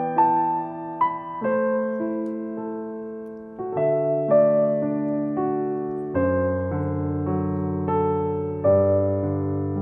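Background music: a slow piano melody over chords, each note struck and left to ring and fade.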